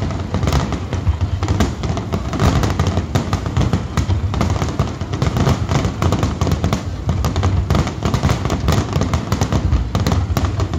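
Aerial fireworks shells bursting in a dense, rapid barrage. The bangs and crackles overlap without a break over a continuous low booming rumble.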